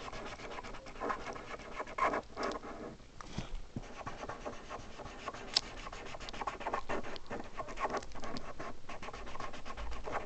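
Drawing tool scribbling rapidly back and forth on paper, shading in small areas of a drawing, with one sharp click about halfway through.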